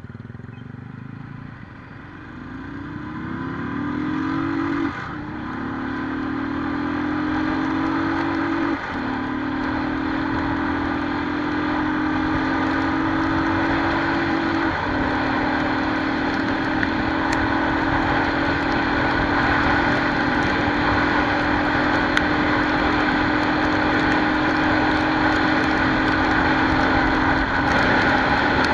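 Royal Enfield Thunderbird single-cylinder engine accelerating hard up through the gears toward top speed. Its pitch climbs and drops at each of four gear changes, the later gears climbing more and more slowly, with a rising rush of wind.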